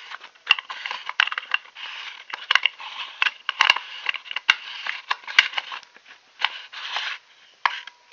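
Field telephone handset's mouthpiece and carbon microphone capsule being fitted back together by hand: a quick string of sharp clicks and scraping of hard parts, dying down about seven seconds in, with a few more clicks near the end.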